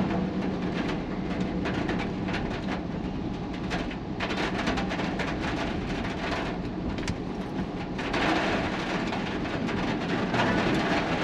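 Rain and wind on a city road with traffic: a steady rush of rain and tyre noise over a low rumble, with many sharp taps of drops striking close by. The rush grows fuller about eight seconds in.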